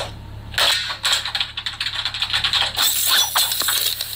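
Plastic stylus tapping and scratching on a drawing tablet's glass screen: a quick run of clicks and scrapes. A brighter hiss comes in for about the last second.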